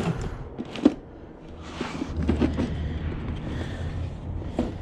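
A single knock, then cardboard boxes and their contents being moved and rustled.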